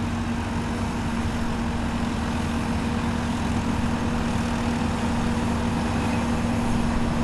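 Fendt tractor's diesel engine running hard at steady revs while pulling a weight-transfer sled, its note holding even and growing slightly louder.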